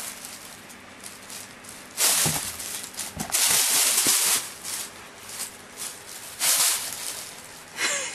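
Thin plastic shopping bag crinkling and rustling as a kitten dives into and tumbles about in it, in several loud bursts, the longest about a second long midway, with quieter rustling between.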